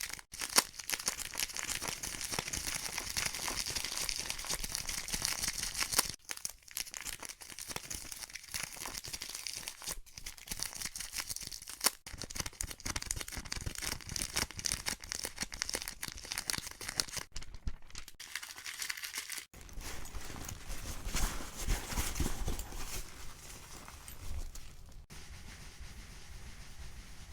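A run of separate noisy sound-effect clips, each a dense crackling, rustling noise, changing abruptly about every five or six seconds; the later clips carry more low rumble.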